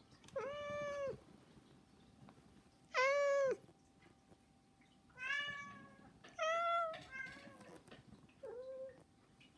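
House cats meowing to beg for food: six drawn-out meows, the loudest about three seconds in.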